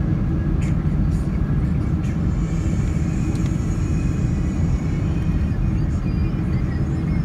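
Steady low rumble of a Boeing 767's engines and rushing air, heard inside the passenger cabin during the descent to land. A faint high whine joins about two seconds in.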